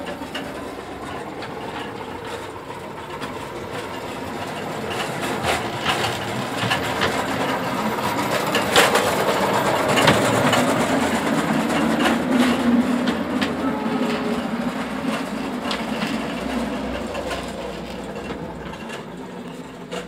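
Ride-on 1:8 scale model locomotive running on garden track: a steady drive hum with irregular clicking of the wheels on the rails, louder around the middle.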